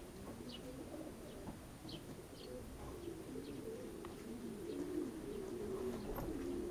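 Racing pigeons cooing, several low rolling coos overlapping without a break, with faint short high chirps of small birds scattered through.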